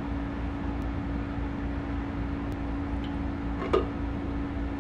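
Steady low machine hum at one constant pitch, with one short clack about three-quarters of the way through.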